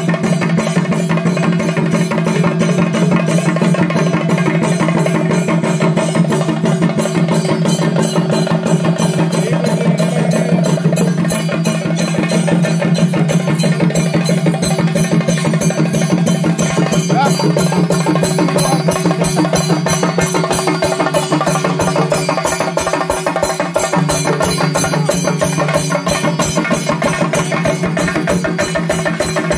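Fast, unbroken chenda drumming with sticks, many strokes a second, over a steady held low tone: the ritual drumming that drives a Theyyam dance.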